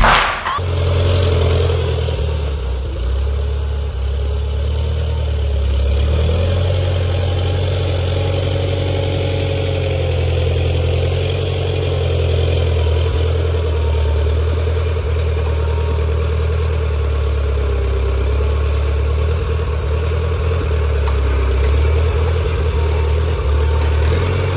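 Orchard forklift's engine running steadily with a low drone while it lifts bins.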